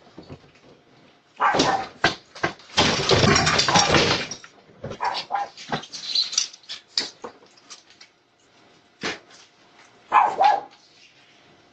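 A dog barking in several short bouts, the longest and loudest about three seconds in.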